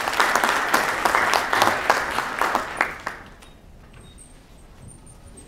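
Audience applauding, dense clapping that dies away about three seconds in.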